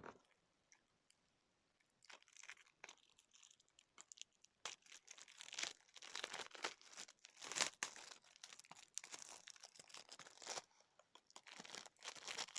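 Plastic packaging being handled, crinkled and torn in irregular crackling bursts, starting about two seconds in, as a Blu-ray case is unwrapped.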